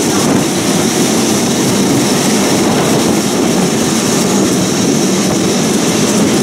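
Classic two-axle electric tram running along its rails: a steady, unbroken rumble of wheels and running gear.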